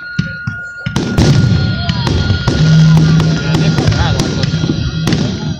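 Aerial fireworks shells bursting in several sharp bangs, over loud music playing.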